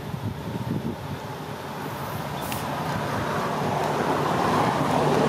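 A motor vehicle's engine coming closer, its noise growing steadily louder from about two seconds in.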